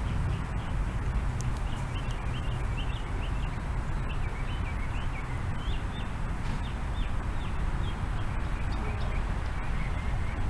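Birds chirping in a quick string of short high calls that thin out near the end, over a steady low background rumble.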